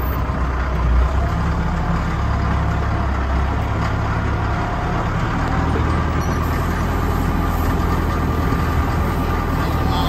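Forklift engine running, shifting in speed a couple of times as it works the slab bundles out of the rack.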